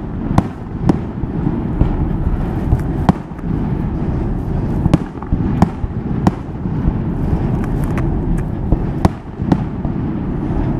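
Aerial fireworks shells bursting: about a dozen sharp bangs and cracks at irregular intervals, over a steady low rumble.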